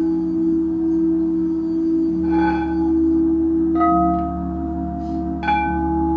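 Frosted quartz crystal singing bowls ringing in a sustained drone with a slow wavering beat. Two mallet strikes, about four and five and a half seconds in, each add a new bright bell-like tone that rings on.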